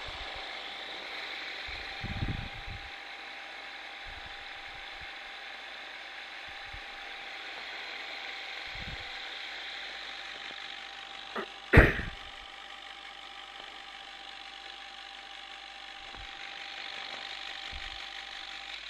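Sana grain mill's electric flour sifter attachment running steadily: its motor turns a set of brushes that force flour through the sifting screen, a steady hum with one constant tone. A single sharp knock about twelve seconds in; the running stops near the end.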